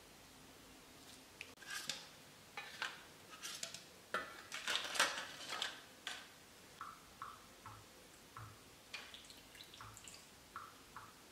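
A metal spoon clinks and scrapes in a stainless steel pot and foil cups are handled, with a cluster of louder knocks about halfway. Then warm panna cotta cream drips and pours from a ladle into foil cups as a run of short, even drips, about two a second.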